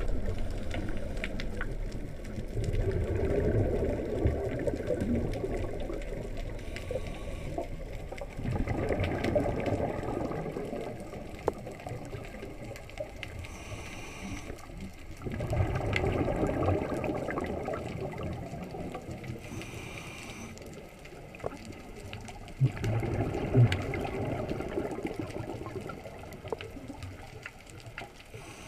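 Scuba regulator breathing heard underwater through the camera housing: long bubbling exhalations about every six or seven seconds, some of them preceded by a short hiss of inhalation.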